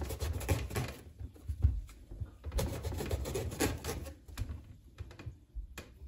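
Knife cutting slits into a whole eggplant, with irregular small knocks and clicks and soft low thumps as it is handled.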